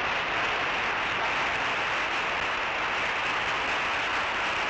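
Audience applauding: dense, steady clapping that holds at one level.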